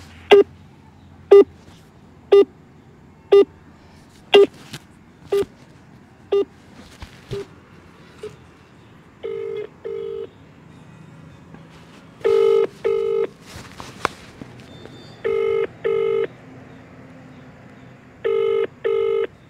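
Outgoing mobile call heard through the phone's loudspeaker: a string of short pips about once a second, fading, while the call connects, then the Indian ringback tone, a double ring repeating about every three seconds as the other phone rings unanswered.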